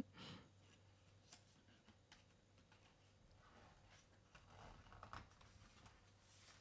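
Near silence: room tone with a few faint clicks and rustles from hands handling a picture book's paper pages and flap.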